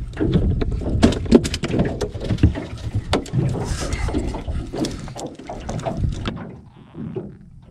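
A run of knocks, thumps and clatter from a plastic cooler lid and gear being handled in an aluminum boat, dying down about six seconds in.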